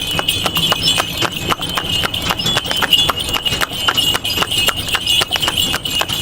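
Small electric motor whining with a rapid, uneven clicking of gears, typical of a DIY model tractor's drive.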